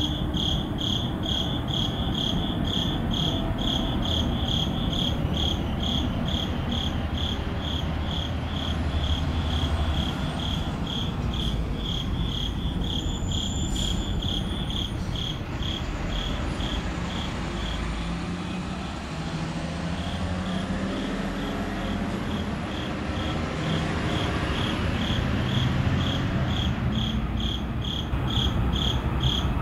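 Crickets chirping in an even rhythm, about two chirps a second, over a low rumble of traffic that swells for a while in the middle.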